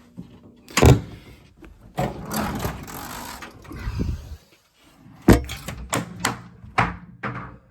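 Hard parts being handled and knocked together. There is a sharp knock about a second in, then a couple of seconds of scraping and rustling, then a quick run of about six clicks and taps near the end.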